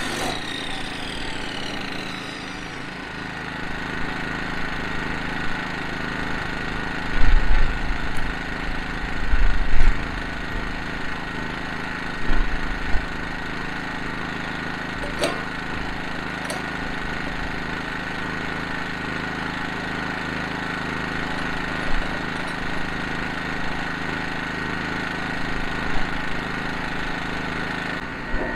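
A portable generator runs steadily, with an abrasive drop saw's cutting disc spinning down after a cut in the first couple of seconds. A few low thumps come around the middle as the steel pipe is shifted in the saw.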